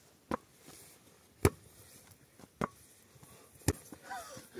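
A light inflated ball being knocked back and forth by hand and head, four sharp smacks about a second apart. A short vocal sound comes near the end.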